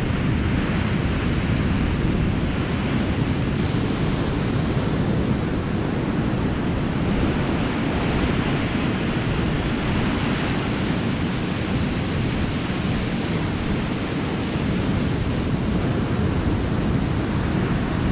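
Steady rush of wind on the microphone over the wash of sea surf, even throughout with no distinct events.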